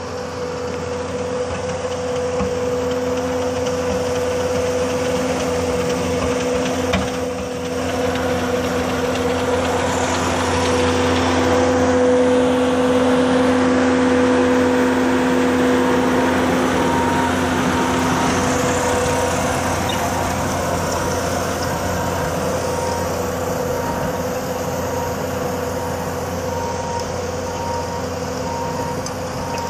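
Bobcat S570 skid-steer loader's diesel engine running at steady working speed while driving a hydraulic sweeper broom across milled asphalt, a steady engine drone with a hydraulic hum and a brushing hiss, loudest as the machine passes closest. A faint repeating beep sounds in the second half.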